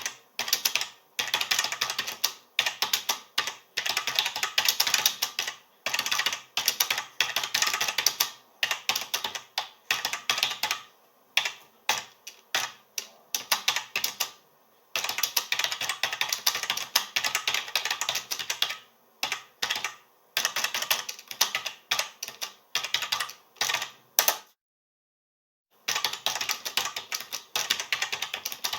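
Typing on a computer keyboard: rapid runs of key clicks in bursts of a few seconds with short pauses between them. It drops to complete silence for about a second and a half near the end, then the typing resumes.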